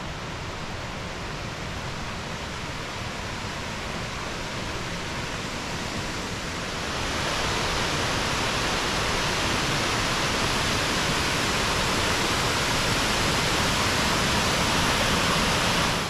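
Waterfall: a steady rush of falling water, which grows louder and brighter about seven seconds in.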